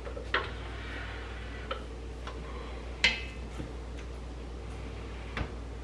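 A wooden spoon knocking and scraping against the stainless steel inner pot of an Instant Pot while stirring cooked rice: a few separate knocks, the sharpest about three seconds in, over a steady low hum.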